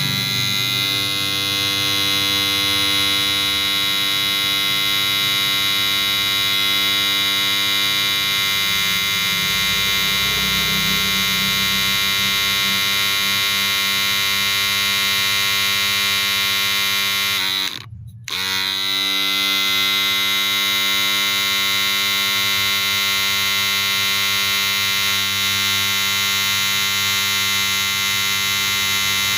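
Wahl cordless hair clipper running with a steady electric hum. About eighteen seconds in the motor cuts out briefly, its pitch sliding down, then comes back, rising to full speed again.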